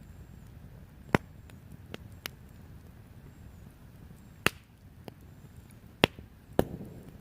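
Knife chopping onions: about six sharp knocks at uneven intervals, four of them loud.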